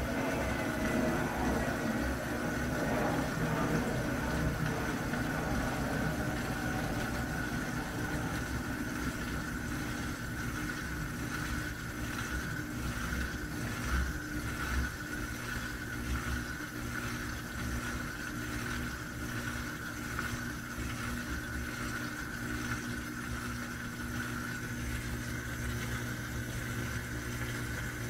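Electrolux LM13Q top-load washing machine in the final spin of its cycle: a steady motor hum with a few held tones, slowly getting quieter as the spin winds down.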